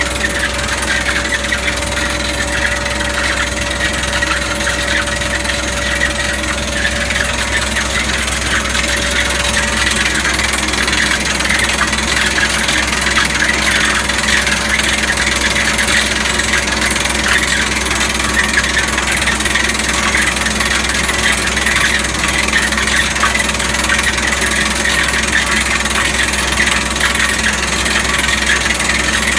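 Down-the-hole air hammer of a well-drilling rig pounding through iron stone about 60 feet down. It makes a steady, loud racket of rapid blows, with compressed air and water blasting out of the casing and the rig's engine running underneath. A steady hum drops out about ten seconds in.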